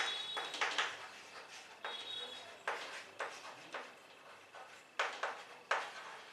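Short scratchy writing strokes and taps, several sharp ones spread through the stretch, with a faint thin squeak about two seconds in.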